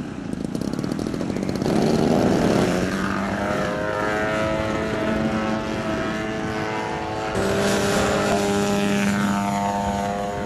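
Engine and propeller of a large aerobatic radio-controlled model plane running at a steady, even pitch. About seven seconds in the sound cuts abruptly to another model plane's engine, also steady.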